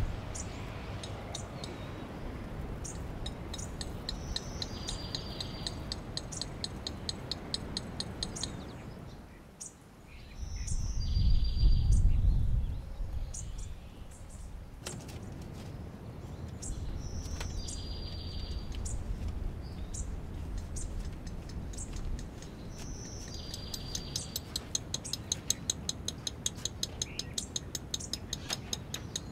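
A bird singing the same short phrase about every six seconds, a high note followed by a rapid ticking trill, over a steady low rumble that swells briefly about ten seconds in.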